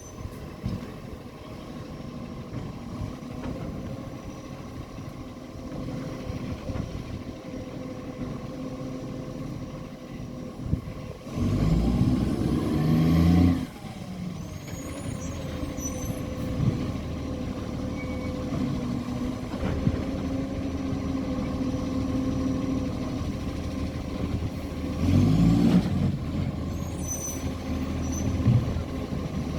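Garbage truck's diesel engine running steadily with a bad exhaust leak, revving up hard twice, the first time for about two seconds a little before the middle and again briefly near the end.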